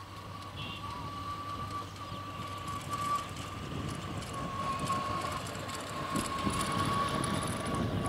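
Approaching diesel train hauled by a GM-EMD GT18LA locomotive, its rumble growing steadily louder. A thin, steady high whine runs throughout.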